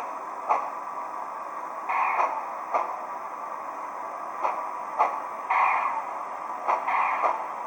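Steam-locomotive sound effects from an HO-scale Southern Pacific AC-12 cab forward's DCC sound decoder, heard through its small speaker. Sharp beats, several in pairs about half a second apart, and three short bursts of steam hiss sit over a steady background hiss.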